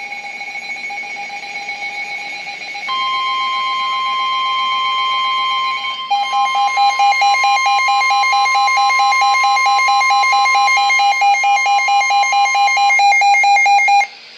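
Emergency Alert System alarm tones: steady electronic tones with a pulsing beat. A higher steady tone joins about three seconds in, and a louder, faster-pulsing layer takes over near six seconds. The tones cut off abruptly just before the end.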